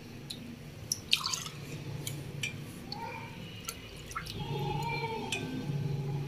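Milk being ladled with a steel ladle and poured into a cup and a steel pot, dripping and splashing, with scattered light clinks of the ladle against the cup and pot rims.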